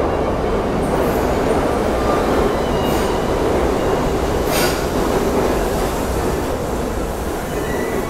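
Subway train running into the station on the near track: a loud, steady rumble of wheels on rail with faint thin squeals. A single sharp clank comes about four and a half seconds in.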